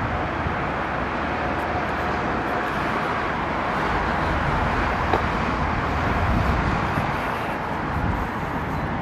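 A steady outdoor rushing noise with a low rumble, unbroken throughout.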